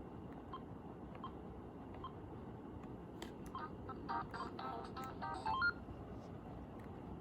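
AT&T cordless phone handset sounding a quick run of short electronic beeps, like keypad tones, about halfway through, after a few soft button clicks.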